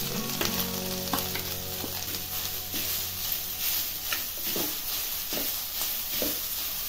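Freshly grated coconut sizzling in hot ghee in a steel kadhai. From about two seconds in, a spatula scrapes and taps the pan as the coconut is stirred and roasted.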